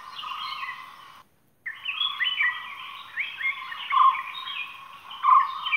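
Birds chirping, many short falling notes overlapping one another, with a brief cut to silence a little after a second in.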